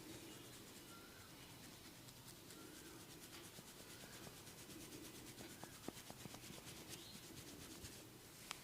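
Faint rubbing of a barber's hands over a person's head and skin during a massage, with a few tiny clicks about six seconds in and one near the end.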